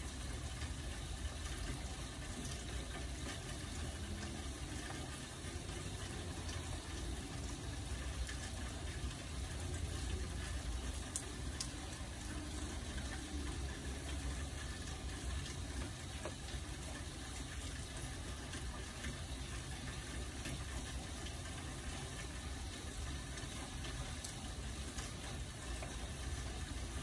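Steady rain falling: an even, unbroken hiss with a low rumble underneath and faint scattered ticks of drops.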